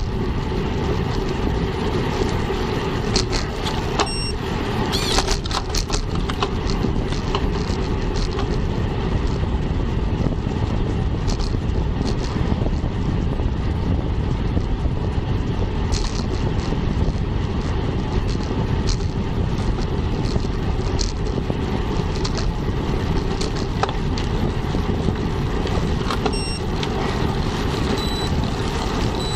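Steady wind rush on a Cycliq bike camera's microphone, mixed with tyre noise on asphalt, while cycling at about 25 km/h, with a few brief clicks.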